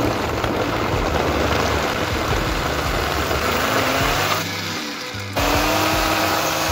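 Countertop blender running on a smoothie mix too thick to blend easily. Its motor-and-blade noise is loud and steady, dips for about a second some four and a half seconds in, then comes back. Background music plays underneath.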